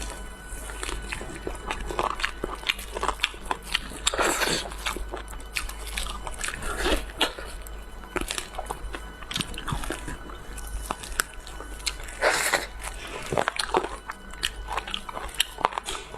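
A person eating close to the microphone: irregular bites and chewing with sharp, crunchy clicks. There are heavier bursts about four seconds in and again about twelve seconds in.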